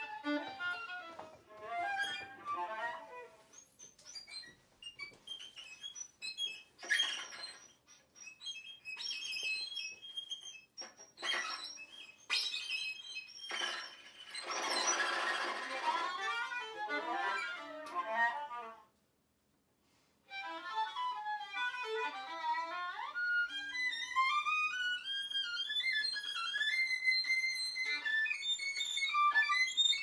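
Violin and viola duo playing: broken, fragmented bowed gestures mixed with harsh, noisy bow strokes, a short silence about two-thirds through, then several lines climbing in steps to high notes.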